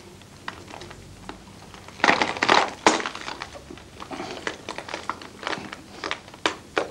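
Broken glass crunching and crackling under a man's bare back as another man's weight comes onto his chest. The loudest crunching comes in a burst about two seconds in, followed by scattered small crackles.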